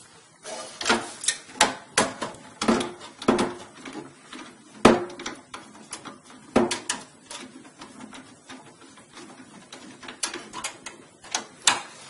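Irregular metallic clicks and clinks of a screwdriver and screws against a desktop computer's metal case and motherboard standoffs as the motherboard screws are driven in. The sharpest click comes about five seconds in.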